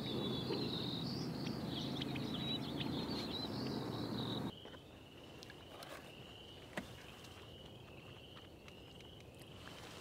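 Outdoor ambience of many birds chirping over a low rumble. About halfway through it turns quieter, leaving a short high call repeated steadily about one and a half times a second, and a single faint click.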